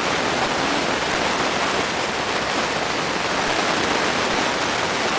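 Steady rushing water noise, an even hiss with no breaks.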